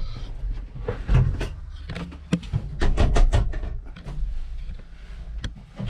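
Tractor cab door being worked open and shut, giving a series of sharp clicks and knocks from the latch and door panel; the door does not shut very securely.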